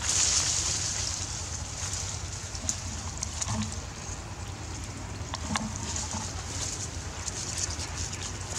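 Wind rumbling on the microphone under a steady high hiss, with scattered crackles and snaps of twigs and leaves as monkeys clamber through the branches.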